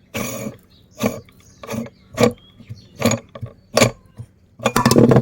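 Meat grinder crushing mini ice cream cones: a run of short crunching bursts, roughly one every three-quarters of a second, with a longer, louder crunch near the end.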